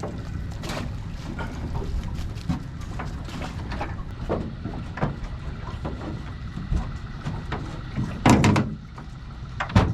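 Knocks and rattles of a mud-crab pot being handled aboard a small boat over a steady low rumble, with one louder noise about eight seconds in.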